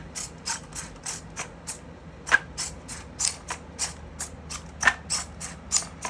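3D-printed eight-legged spider robot walking, its plastic legs and servo motors clicking rapidly and evenly, about four clicks a second over a faint steady hum, as it backs away and searches for a path in obstacle-avoidance mode.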